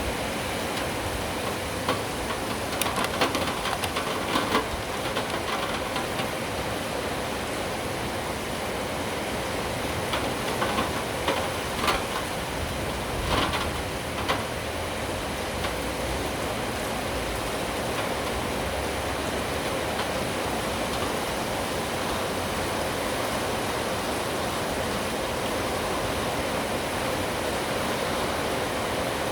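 Steady rain hissing, with scattered clusters of short sharp ticks in the first half, like heavy drops or drips hitting a hard surface close by.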